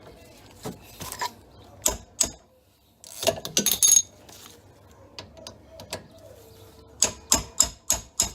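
Metal hand tools and rear brake caliper hardware clicking and clinking as they are handled, in scattered short knocks. There is a brief rattle partway through and a quick run of clicks near the end.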